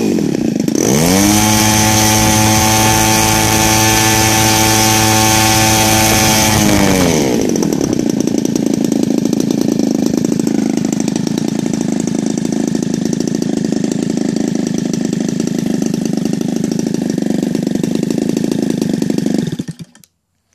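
Evolution 45 cc single-cylinder two-stroke gasoline model-aircraft engine with a CH CDI ignition, turning a 22x8 wooden propeller. It revs up about a second in, holds a high steady speed for about six seconds, drops back to a slow idle, and then cuts off suddenly near the end.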